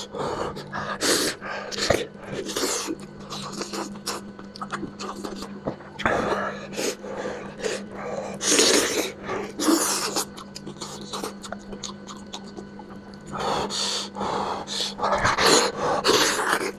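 A person eating spicy lamb head close to the microphone: irregular bursts of chewing and sucking at the meat. A steady low hum runs underneath.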